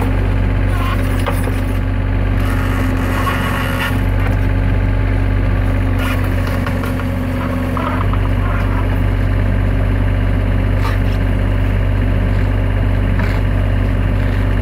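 Terex TC25 mini excavator's diesel engine running steadily at idle, its note shifting slightly about four and eight seconds in, with a few faint metallic clicks from a crowbar against the steel sprocket and track.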